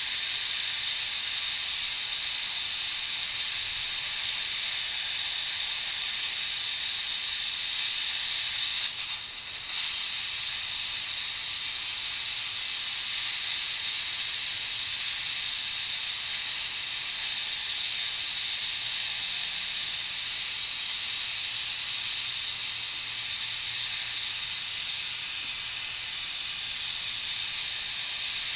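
Gas torch flame hissing steadily as it heats a rusted, seized bolt on a turbocharger's exhaust manifold to loosen the rust in its threads. The hiss dips briefly about nine seconds in.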